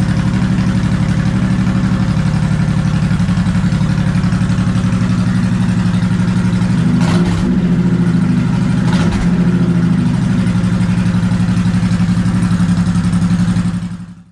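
2003 Honda VTX1800C's big V-twin idling through a newly fitted Cobra slash-cut exhaust, with two short revs about seven and nine seconds in. The sound fades out just before the end.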